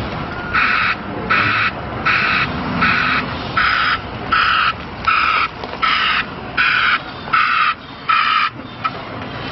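Reversing alarm of a 2008 Ford E350 box truck beeping as it backs up: about eleven even beeps a little under a second apart that stop near the end, over the truck's engine running low underneath.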